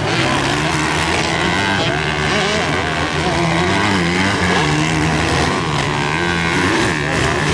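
Several motocross bikes running on a dirt track at once, their engines revving up and falling back as they overlap, none of them standing out for long.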